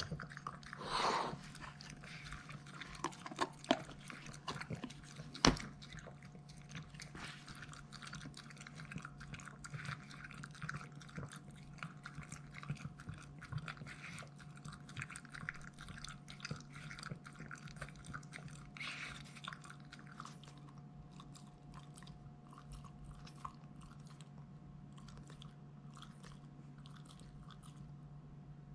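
A Boston terrier lapping water from a raised ceramic bowl: quick wet laps and slurps, busy for about the first twenty seconds, then sparser. There is one sharper knock about five seconds in.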